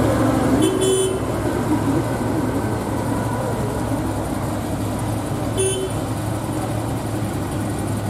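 Two short car-horn toots, about a second in and again near six seconds, over the steady running of slow-moving vehicle engines.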